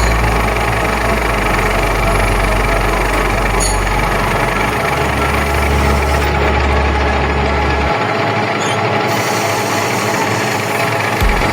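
Nardini metal lathe running with a steady mechanical noise. Its low hum steps up in pitch about five seconds in and drops away about three seconds later, as if the spindle speed is changing.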